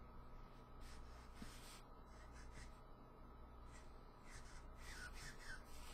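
Faint, irregular strokes of a Copic alcohol marker rubbing over paper as colour is laid in, with a faint steady hum underneath.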